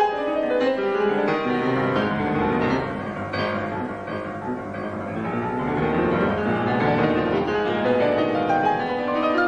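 Solo grand piano playing classical music: fast runs sweep down from the treble into the bass, settle a little quieter in the lower range, then climb back up near the end.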